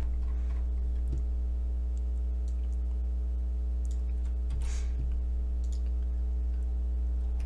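Steady low electrical hum with a few faint, scattered clicks of a computer mouse.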